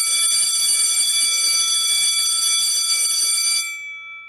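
A loud, bright, steady electronic tone with many overtones, held for about three and a half seconds. Its upper overtones then drop away and the lower ones fade out.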